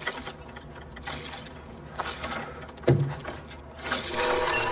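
Clockwork-style mechanism of a fairground clown automaton clicking and ratcheting, with a heavier knock about three seconds in and a steady tone starting near the end.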